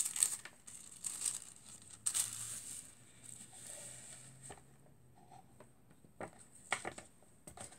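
Foil sheet and tissue paper crinkling in several short rustles as a hand smooths and presses them flat.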